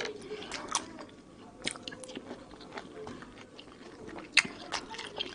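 Chewing mandarin orange segments, with scattered sharp, wet clicks from the mouth.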